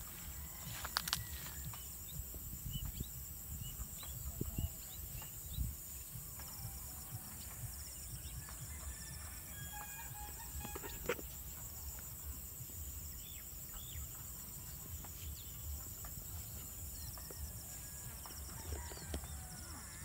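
Rural field ambience: a steady high-pitched insect buzz, with scattered short bird chirps and calls throughout. Underneath runs a low rumble of wind and handling on the phone's microphone.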